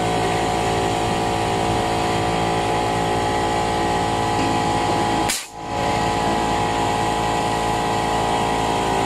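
Small air compressor running steadily, a motor sound made of several steady tones, which drops out for a moment a little past halfway and then carries on.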